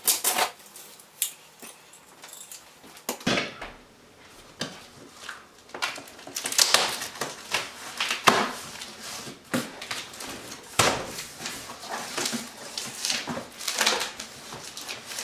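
Scissors slicing along packing tape on a large cardboard box, in irregular rasping and scraping strokes with cardboard rustling and creaking, then the box flaps being pulled open near the end.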